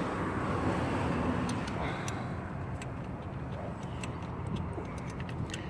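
Scattered light metallic clicks of a 12 mm wrench working the nuts and bolts on a UAZ 417 engine, over a steady low outdoor rumble.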